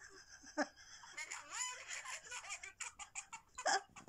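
Women giggling and laughing in short bursts, one of them heard over a phone video call, with a louder laugh near the end.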